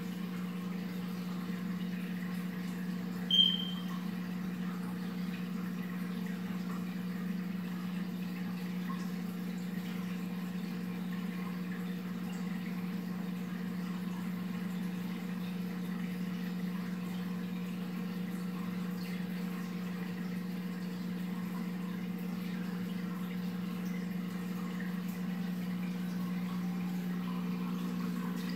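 Steady low hum with a faint hiss from the aquarium's built-in wet/dry filtration system running. About three seconds in comes one short high-pitched beep.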